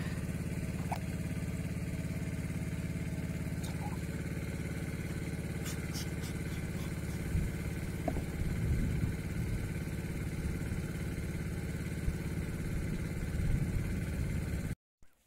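Transfer pump running steadily with a low, engine-like hum as it pushes sugar syrup through the feed hose into the hive feeders. A few soft bumps come in the middle, and the hum cuts off suddenly near the end.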